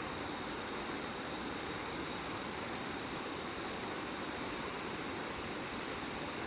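Steady rushing of a river, with a continuous high insect tone over it.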